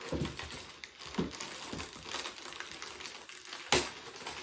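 Clear plastic bag rustling and crinkling as a plastic-wrapped model-aircraft part is handled and pulled from its box, with a sharp knock near the end.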